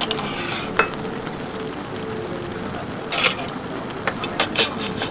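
Spicy tteokbokki and ramen noodles simmering and sizzling in a shallow pan, with sharp clinks of metal utensils against the pan and dishes: one just under a second in, a cluster about three seconds in, and several more near the end.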